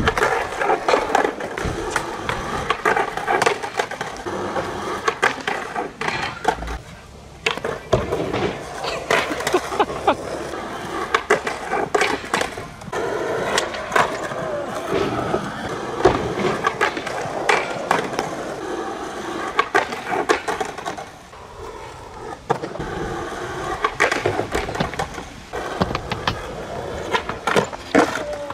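Skateboard rolling on rough asphalt with a continuous rumble from the wheels. Many sharp clacks and slaps of the board punctuate it: tail pops, landings and the board hitting the ground as tricks are tried.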